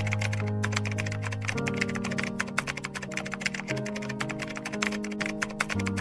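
Background music with no vocals: held chords that change about every two seconds over fast, ticking percussion.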